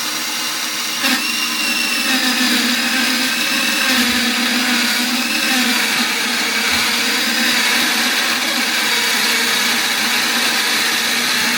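Motor-driven Lego Technic table saw running with a steady whine that wavers a little, its plastic blade grinding against a piece of wood, with one click about a second in. The blade is melting its way into the wood more than cutting it.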